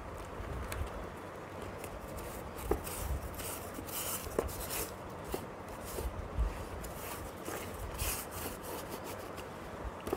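A cloth rubbing and wiping over the inside of a motorcycle helmet, across its EPS foam liner and plastic shell, in irregular scuffing strokes with short swishes. A few small knocks and bumps come from the helmet being handled and turned.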